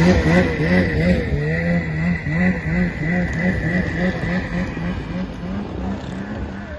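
Snowmobile engine running hard while towing a buried sled out, its pitch wavering up and down about three times a second and fading gradually as it moves off.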